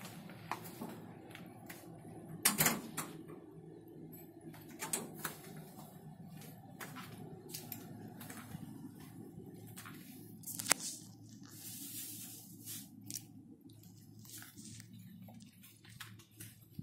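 Quiet indoor room tone: a steady low hum with scattered soft clicks and knocks. The loudest click comes about two and a half seconds in, and another sharp one near eleven seconds.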